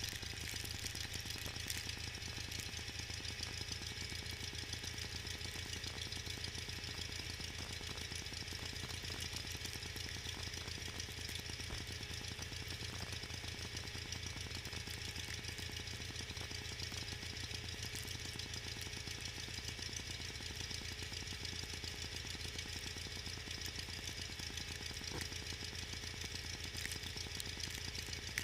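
John Deere 318 garden tractor engine running steadily at an even speed.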